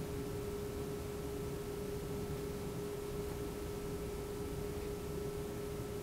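Room tone: a steady single-pitched hum over low background hiss.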